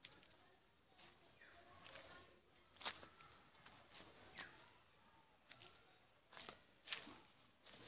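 Quiet yard sound with a few short, high bird chirps and scattered sharp clicks and rustles from the handheld phone being moved about. The loudest clicks come about three seconds and seven seconds in.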